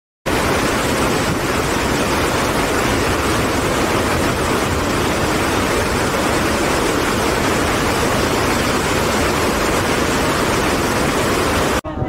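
River rapids: white water pouring over boulders, a loud, steady, even rush of water that starts abruptly just after the start and cuts off suddenly near the end.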